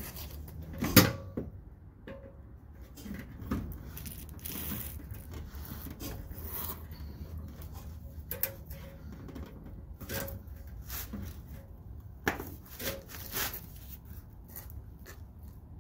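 Irregular metallic clanks and knocks from a hand pry tool working the rubber hangers of a rusty exhaust loose, with a sharp clank about a second in as the loudest.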